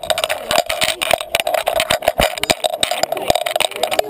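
A collar-mounted GoPro camera housing rattling and knocking in quick, irregular clicks as the Great Dane wearing it moves.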